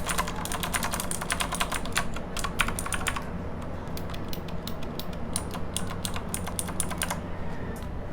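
Typing on a mechanical keyboard with stock, unlubricated Outemu Blue clicky switches: a fast, dense run of keystrokes for about three seconds, then slower, scattered, softer key presses that stop about a second before the end. The switches sound really noisy.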